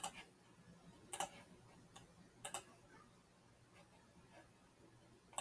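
Computer mouse clicking a few times, a second or more apart, each click a quick double tick, as parts are picked one by one on screen.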